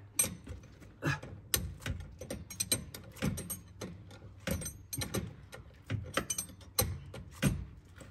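Hand tools and metal parts clinking and clicking during rear shock absorber work on a car: irregular sharp metallic clicks, one or two a second, with a few quick clusters.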